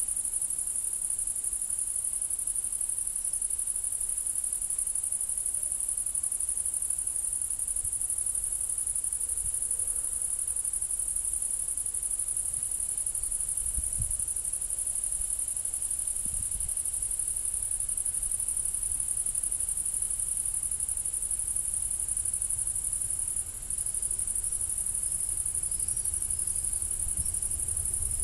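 Crickets chirring in a dense, steady, high-pitched drone. A low rumble builds near the end.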